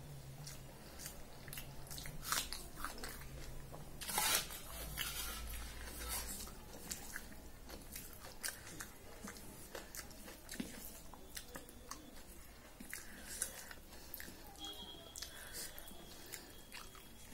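Close-up eating sounds: chewing and mouth clicks of someone eating rice by hand, with soft squishing and taps as the fingers mix rice on a steel plate. A louder rustling burst comes about four seconds in.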